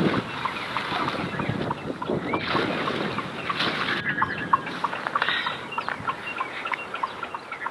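Birds calling outdoors, many short overlapping calls over a steady background noise.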